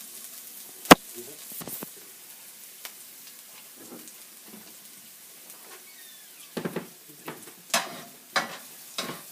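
Garlic frying in oil in a frying pan, a steady sizzle. A sharp knock about a second in is the loudest sound, and near the end comes a run of spatula scrapes and knocks against the pan as the garlic is stirred.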